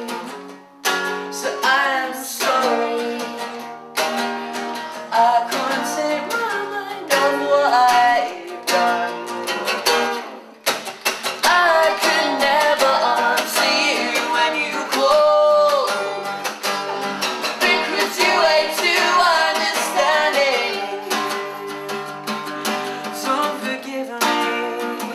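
Acoustic guitar strummed as accompaniment to a young man's singing voice, a slow song performed live.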